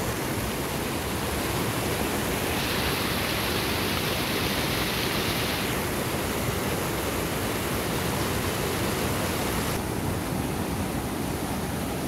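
Fast mountain stream rushing through rapids over boulders: a steady wash of white water. The hiss brightens for a few seconds about three seconds in.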